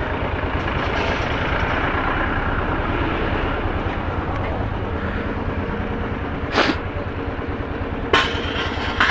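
Motorcycle engine idling steadily while the bike is manoeuvred through a narrow gateway, with a couple of sharp knocks in the second half.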